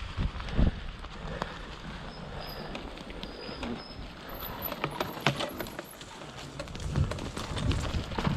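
Venom Cyklonebike electric off-road bike riding a forest trail: irregular knocks and rattles from the bike over the rough ground.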